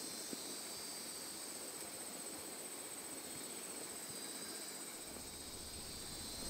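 Steady high-pitched chorus of insects droning without a break in the swamp. A faint low rumble joins about five seconds in.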